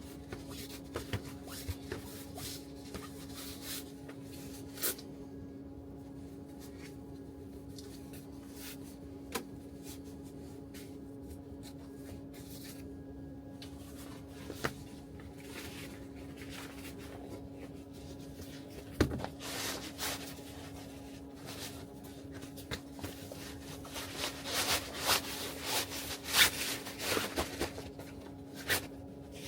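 Scattered clicks, knocks and rustling of things being handled in a small room, busier and louder near the end, over a steady low hum.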